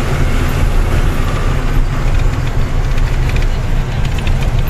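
Truck engine running and road noise heard from inside the cab of a moving goods truck on a highway: a steady, loud low rumble.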